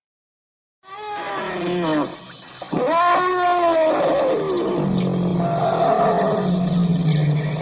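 Indian elephant calling: after a moment of silence, a pitched call that falls away, then a louder call that rises and falls, followed by a lower, steadier call.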